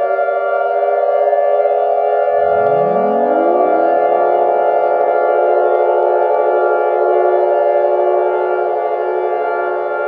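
Civil-defense-style siren tones of a fictional emergency alert: several sirens sounding together at different held pitches, with another set winding up from low pitch about two seconds in and then holding steady.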